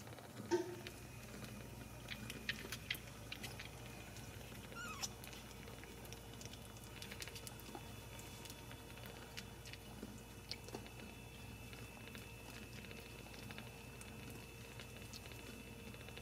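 Newborn Ragdoll kittens suckling at their mother: faint scattered clicks and smacking sounds, with a short squeak about half a second in and a quick rising squeak about five seconds in.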